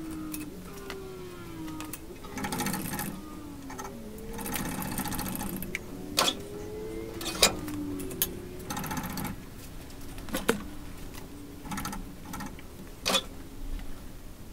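Engine-installation workshop noise: two runs of rapid mechanical ratcheting, about two seconds each, and several sharp metal clicks and knocks, over squeaky tones that glide up and down.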